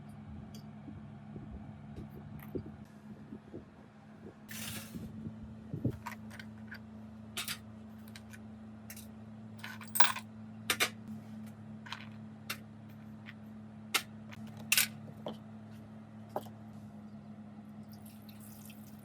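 Irregular sharp clicks and clinks of small metal parts being handled and set down on a hard surface during workshop disassembly or cleaning, with a few brief scraping or rustling bursts, over a steady low hum.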